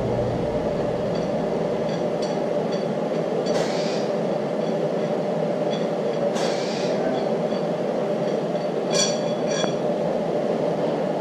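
Metal clinks and scrapes as a threaded camshaft installer rod is unscrewed and drawn out of the nose of a Gen3 HEMI camshaft: light pings early on, two longer scraping slides, then two ringing clinks near the end. A steady background hum runs underneath.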